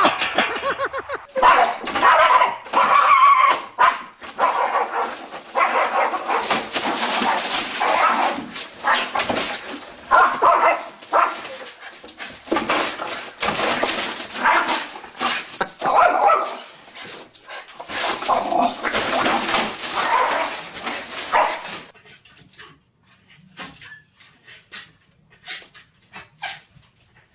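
A dog barking and whining over and over. About 22 seconds in, the sound drops to a quieter stretch with a few short clicks.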